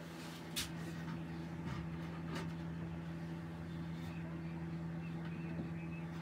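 A few faint, light wooden knocks and clicks as the lid of a small pine box is lifted off its cut line and held open, over a steady low hum.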